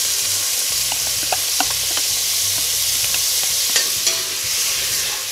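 Paneer cubes sizzling as they fry in a hot pot. A spatula stirs them, with a scattering of short clicks and scrapes against the metal.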